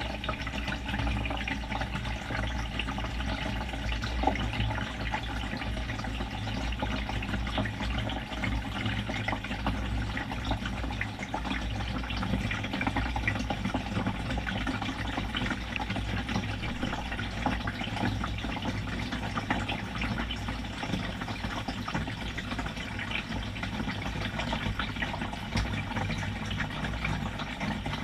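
BEKO front-loading washing machine filling with water, heard from inside the drum: a steady rush of inflowing, splashing water over a low rumble, with many small clicks and ticks.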